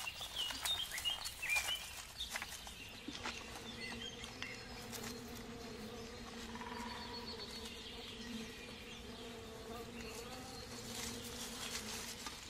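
Burzyan honeybees buzzing around their hive, a steady hum. A few clicks and short high chirps come in the first few seconds.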